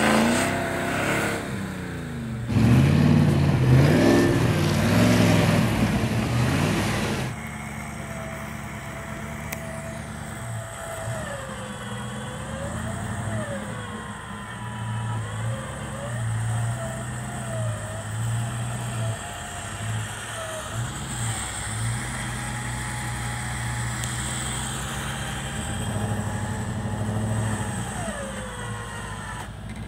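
Land Rover Discovery I engine revving hard in deep snow, its pitch rising and falling. About seven seconds in, the sound cuts to quieter running, with the revs rising and falling again and again as the 4x4 works through the snow.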